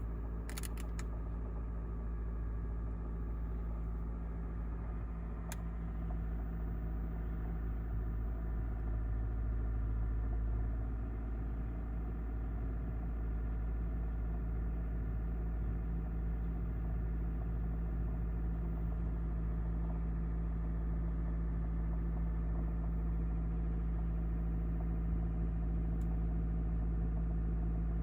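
New-model Honda Vezel, heard inside the cabin just after the power system has started: a steady low hum with a buzzing drone, the unexplained 'jijiji' noise the owner asks about. A few sharp clicks come in the first second and another about five seconds in.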